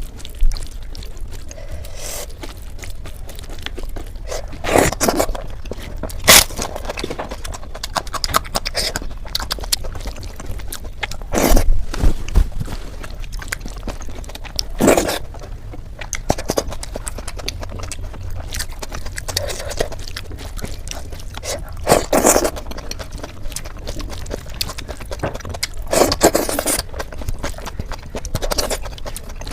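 Close-miked eating sounds of someone chewing fried eggplant (baigan bhaja), with wet smacks and bites in irregular short bursts.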